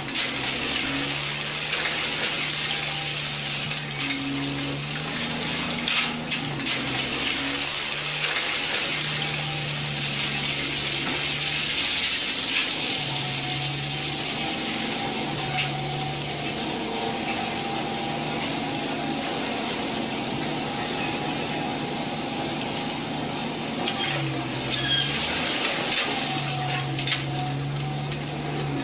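Toy bulldozer running in short stretches of a second or two, its low hum switching on and off over a steady hiss.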